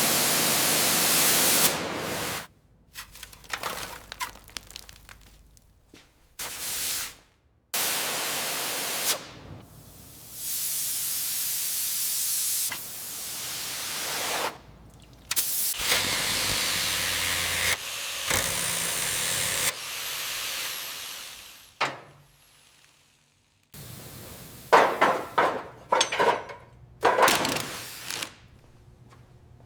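Workshop tool noise cut together in short takes: several stretches of steady hissing, like sprayed air or liquid, each starting and stopping abruptly, with a few sharp knocks near the end.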